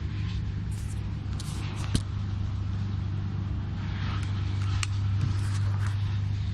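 Steady low hum of road traffic engines, with a few short sharp clicks of a bicycle lock being fastened, the clearest about two seconds in.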